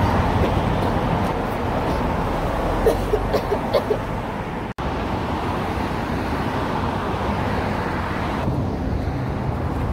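Steady road traffic noise from cars on a street, with a brief dropout in the sound a little before halfway.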